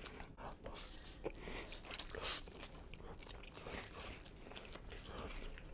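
People chewing and slurping saucy noodles close to a microphone: scattered small wet mouth clicks and smacks, with a brief louder slurp about two seconds in.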